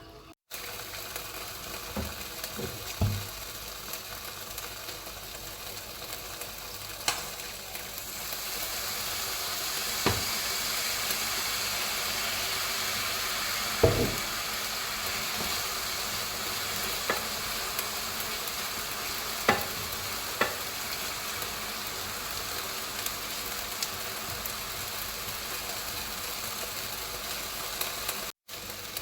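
Food sizzling steadily in a frying pan, the sizzle growing louder about a third of the way in. A utensil knocks against the pan now and then as the food is stirred.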